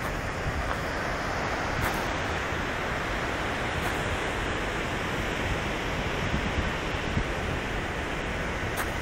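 Ocean surf breaking on a beach, a steady wash of noise, with wind rumbling on the phone's microphone.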